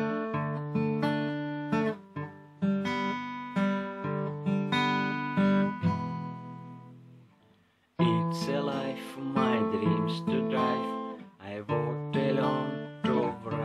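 Acoustic guitar playing a song's intro in picked and strummed chords. About six seconds in a chord is left to ring and die away almost to silence, and the playing starts again, louder, about two seconds later.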